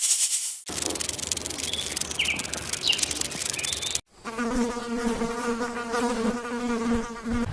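A run of spliced animal-sound clips. A short high hiss is followed by a noisy stretch with a few faint chirps, then, after a sudden cut about halfway through, a steady, slightly wavering buzz.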